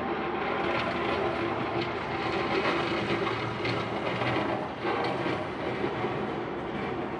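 Steady mechanical rumble with a low hum running through it.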